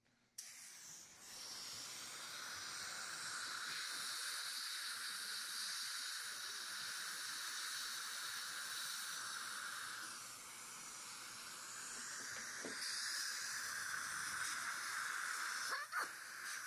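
Steady hiss of dental air equipment at the teeth: an air-abrasion microetcher blasting 50-micron aluminium oxide to clean the enamel, with a suction tube drawing air alongside.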